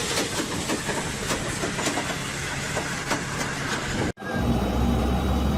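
Moving vehicle noise, a steady rush with regular clicks about twice a second, cutting off suddenly about four seconds in; then a low steady engine hum.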